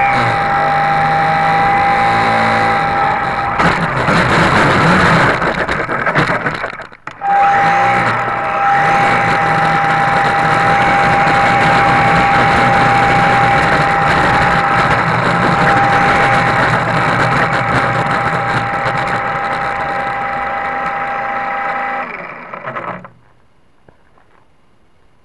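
HobbyZone Super Cub RC plane's electric motor and propeller whining at one steady pitch, with air rushing over the underwing camera. The whine cuts out briefly about seven seconds in and comes back, then stops near the end as the plane comes down.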